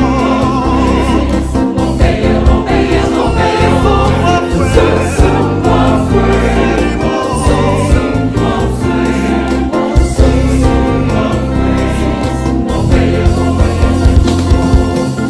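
Gospel choir singing with instrumental backing and a heavy bass, at a steady beat.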